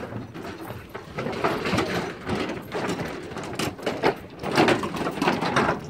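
Footsteps of several people walking on the boards of a floating marina pontoon, with indistinct men's voices.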